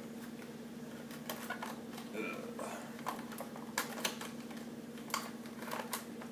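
Irregular light clicks and taps of a hard clear-plastic blister tray being handled while twist ties are undone from an action figure, over a steady low hum.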